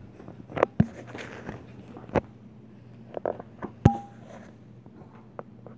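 Handling noise from a phone being moved about: several short, sharp knocks and rustles scattered over a faint steady hum.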